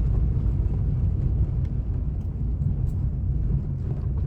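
Car driving on a dirt road: a steady low rumble of engine and tyres, with a few faint ticks from the road surface.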